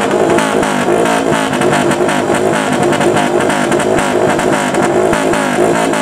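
Modified motorcycle engine revved in a rapid rhythmic pattern of throttle blips, a kyūshakai 'call', its pitch rising and falling a few times a second.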